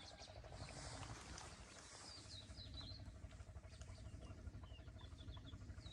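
Small birds chirping: many short, high, quick calls scattered throughout, faint, over a steady low background.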